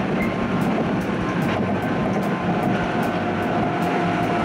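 Electric local train running at speed, heard from inside the carriage: a steady rumble and rush of wheels on rail, with a faint steady whine over it.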